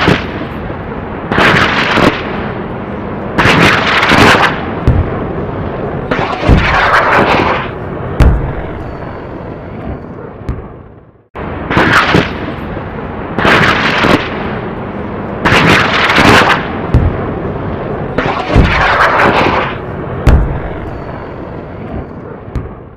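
Fire Fox 12-shot sky-shot firework cake firing its shots in quick succession, about one every one and a half to two seconds. Each shot is a loud bang with hissing. The firing stops briefly around the middle, then starts again.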